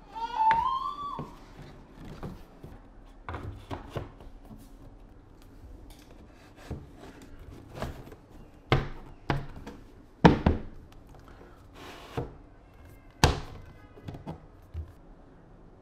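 A short rising squeak, then a dozen or so sharp, separate knocks and taps as door casing (frame cover) pieces are pressed and knocked into place around an interior door frame, the loudest about ten and thirteen seconds in.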